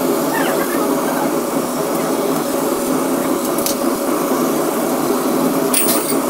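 Laser cutter running as it cuts plywood: a steady whirring noise, with a few sharp clicks near the end.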